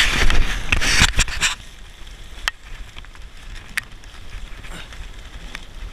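Camera handling noise: loud rustling and rubbing against rain gear and plastic sheeting for the first second and a half, then a few sharp clicks and knocks and quieter rustling.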